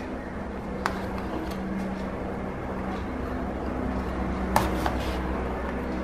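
Steel serving spoon scooping rice and clinking against the dishes: a sharp clink about a second in and two more about four and a half seconds in, the first of those the loudest. A steady low hum runs underneath.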